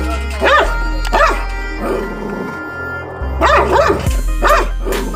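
A dog in a kennel barking in short, arched calls: one at the start, one about a second in, and two close together near the end. Background music with a steady bass plays under the barking.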